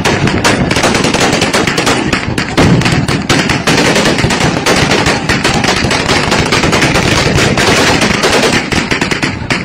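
Celebratory gunfire: many guns fired into the air in rapid, overlapping shots, thinning to more separate shots near the end.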